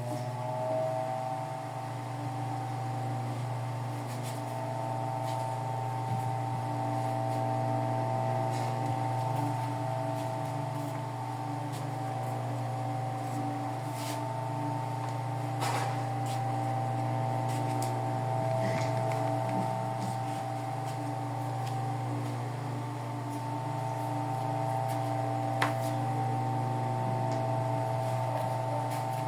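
Mondial electric table fan running without its guards: a steady motor hum with a higher steady whine over it, and a couple of brief faint clicks.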